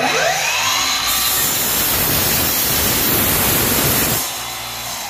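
Cordless Milwaukee miter saw spinning up with a rising whine, then cutting through a board with a loud, steady noise for about three seconds. The noise drops about four seconds in as the cut ends, and the blade winds down with a falling whine near the end.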